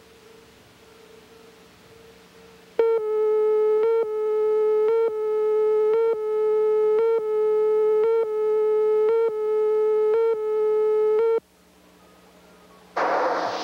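Videotape leader countdown tone: a steady mid-pitched tone that breaks briefly about once a second, in time with the countdown. It starts about three seconds in and stops about eleven seconds in, with faint tape hiss before and after it. A loud burst of noise starts just before the end.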